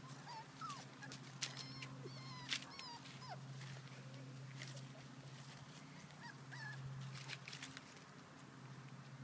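Brittany puppies giving short, high-pitched yips and whines, a run of them in the first few seconds and a couple more later, with light rustles and clicks of dry leaves. A steady low hum runs underneath.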